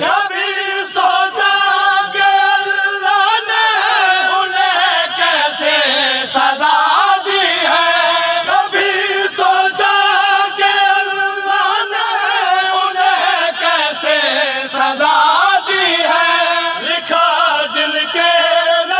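A Shia noha chanted by a male lead reciter through a microphone and loudspeakers, with a group of men chanting along with him in a sustained, melodic lament.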